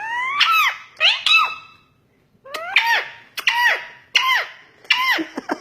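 Pet parrot calling in a string of about seven squeaky calls, each rising and then falling in pitch, with a short pause about two seconds in.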